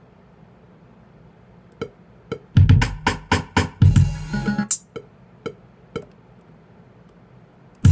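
Electronic drum sounds from a Native Instruments Maschine Studio drum machine: after a quiet start, a quick run of drum hits with a heavy kick for about two seconds, then a few single hits. The full beat cuts back in at the very end.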